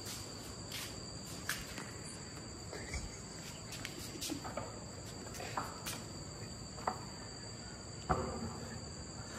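Crickets chirring in a steady high drone, with a few scattered light clicks and knocks.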